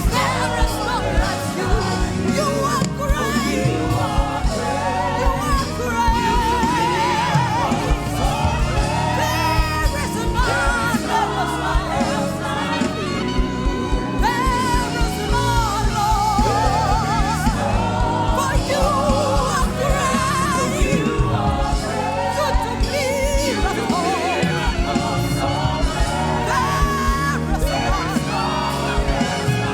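Gospel worship music: singing with wavering, drawn-out notes over a band with a steady beat.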